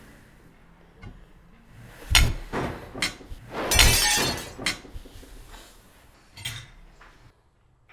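A plate smashing and shattering: sharp crashes about two and three seconds in, the loudest and longest shattering crash around four seconds in, then smaller clatters of breaking pieces.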